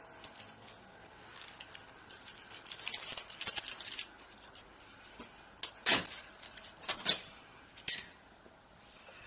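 Handling and movement noise from the person carrying the camera: rustling with small clicks and clinks, and three sharper knocks about six, seven and eight seconds in.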